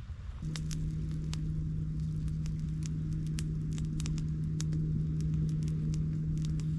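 Campfire crackling with scattered irregular pops, over a steady low hum that starts about half a second in.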